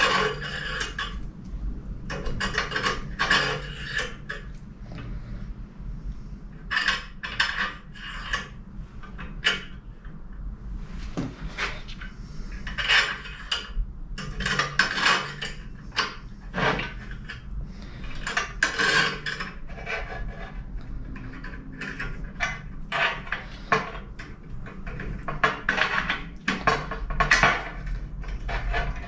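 Steel coil springs and brass washers being slid onto a curved steel bar and handled against a steel plate: irregular metallic clinks and rattles throughout, over a low steady hum.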